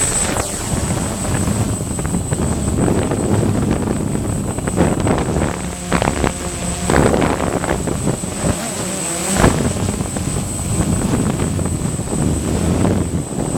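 DJI Phantom 1 quadcopter's propellers buzzing under heavy, uneven wind buffeting on the microphone from strong gusts.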